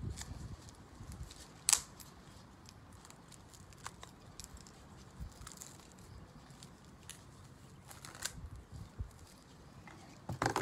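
Sidewalk chalk scratching across a concrete driveway, with a few light clicks: a sharp one about two seconds in and another near the end.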